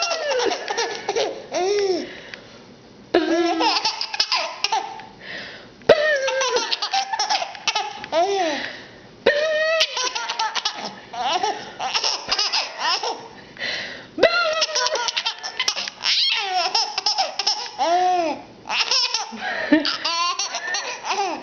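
A baby laughing hard in repeated bouts of high-pitched belly laughs, with short pauses between them.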